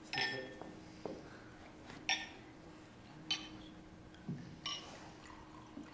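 Glassware and cutlery clinking at a dinner table: about five sharp, ringing clinks a second or so apart, over a faint steady hum.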